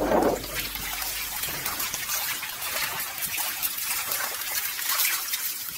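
Shallow water splashing and trickling in small irregular splashes, as netted fish thrash at the surface. Background music fades out in the first second or so.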